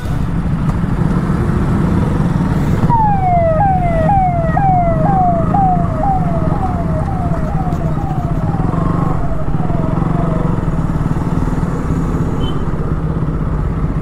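Motorcycle engines and road noise as a group of bikes pulls away across a railway level crossing. From about three seconds in, an electronic warning tone falls in pitch over and over, about twice a second, and fades away by about ten seconds in.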